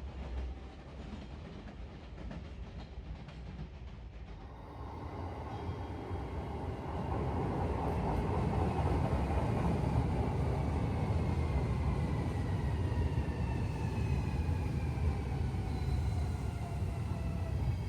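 A train running on rails, with a steady rumble that builds up about five seconds in and grows louder still a couple of seconds later. Several high whines fall slowly in pitch through the second half.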